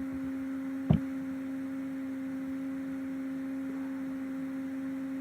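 A steady electrical hum: one even low tone with a fainter overtone above it, and a single sharp click about a second in.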